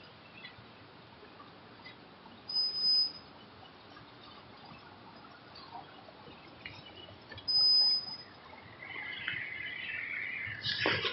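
Two short, high-pitched steady beeps about five seconds apart over faint background noise, with a brief knock near the end.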